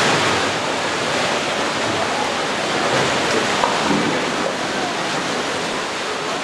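Steady rush of fast-flowing river water, with faint voices underneath.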